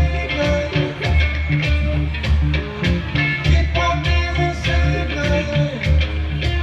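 Live music with a steady drum beat and a heavy bass line under held pitched notes.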